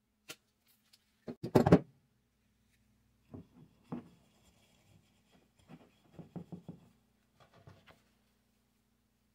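Workbench handling sounds: a short click, then a loud clatter about a second and a half in, followed by scattered lighter clicks and rubbing as paste wax is taken from a tin and rubbed onto a small leather piece. A faint steady hum runs underneath.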